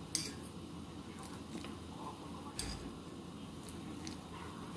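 Metal spoon and fork clinking against a ceramic bowl and a saucepan as minced chicken is scooped and dropped into the soup: a few sharp clinks, the loudest about two and a half seconds in with a soft thump. Under them, the steady hiss of the gas burner and the simmering pot.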